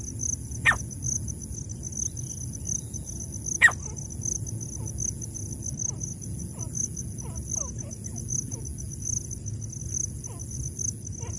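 Two short, sharp, loud notes from a caged francolin (teetar), about a second and about four seconds in, over a steady pulsing insect chorus; from about five seconds on, a scatter of faint, short, downward-sliding bird notes.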